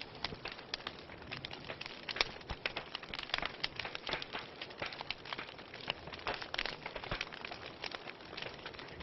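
Wood fire burning in a fireplace, crackling with many irregular pops and snaps over a soft hiss; one sharper pop about two seconds in.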